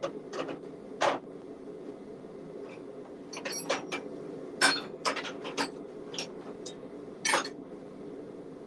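Steel hand tools clinking and clattering in a metal tool chest as they are rummaged through by hand. A few scattered sharp clinks come about a second in, around three and a half to five and a half seconds, and near seven seconds, over a steady low hum.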